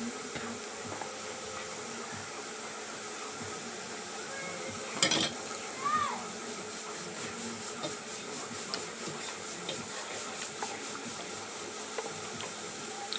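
Noodles being eaten: small utensil and mouth sounds over a steady hiss, with a sharp clatter of a utensil against the bowl about five seconds in, followed by a short voiced sound.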